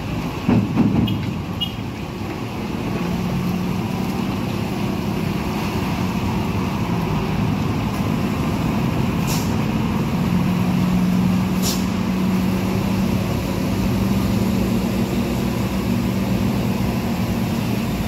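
Heavy diesel truck engine running steadily at low speed, with other road traffic passing on a wet road. There is a louder knock about half a second in and two short sharp hisses or clicks, a little over two seconds apart, past the middle.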